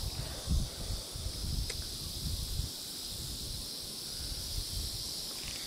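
Outdoor pond-side ambience: wind gusting on the microphone in uneven low rumbles, over a steady high-pitched insect chorus.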